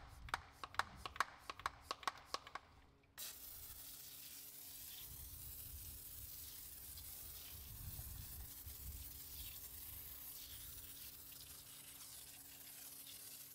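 A hand-pump foam sprayer is pumped up in a quick, uneven run of strokes for about three seconds. It then sprays foam onto a car wheel in a steady hiss.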